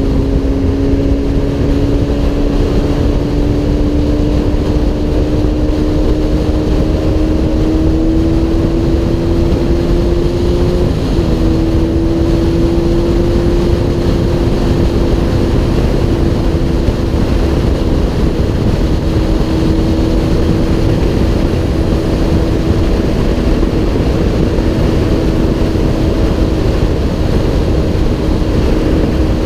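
Honda CBR1000RR's inline-four engine cruising at highway speed, a steady drone that rises slightly in pitch over the first ten seconds, breaks briefly about eleven seconds in, then holds level. Heavy wind rush on the helmet-mounted camera lies under it.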